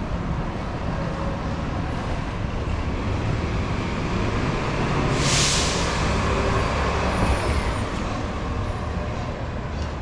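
Downtown street traffic with a heavy vehicle rumbling, growing louder through the middle, and a brief sharp hiss of air about five seconds in.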